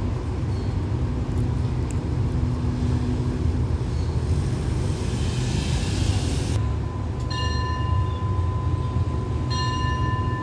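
Passenger train pulling slowly out of the station, a steady low rumble of the moving coaches. A hiss builds and cuts off sharply about six and a half seconds in, and a steady high ringing tone sets in after it.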